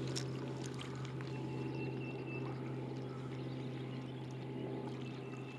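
A steady low hum, the loudest sound, over small waves lapping at the bank.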